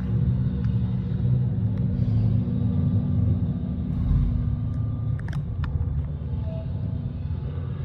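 Steady low mechanical rumble and hum, with a few sharp clicks about five seconds in.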